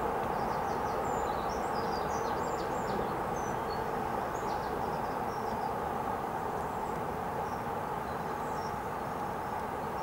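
Steady outdoor background hiss and hum, with faint, high-pitched chirps of small birds scattered through the first half.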